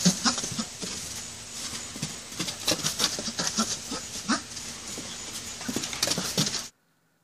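Donkey foal racing and bucking around a straw-bedded pen: quick scuffing and thudding of small hooves in the straw, with short low grunts every second or so. It stops abruptly near the end.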